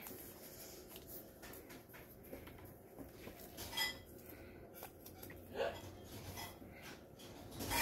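Light metallic clinks and jingles from a wand cat toy, a small Santa on a striped cord, as a cat bites and kicks at it. Soft scattered clicks throughout, with louder ringing jingles near the middle and at the end.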